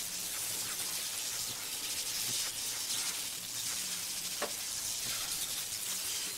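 Stylus surface noise from a vinyl record: a steady hiss with light crackle and one sharp click about four and a half seconds in.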